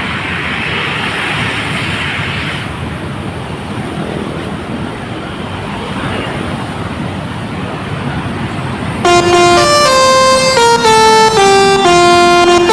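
Road noise from passing traffic, then about nine seconds in a bus's telolet horn starts: a loud multi-trumpet horn playing a tune of short held notes that step up and down in pitch.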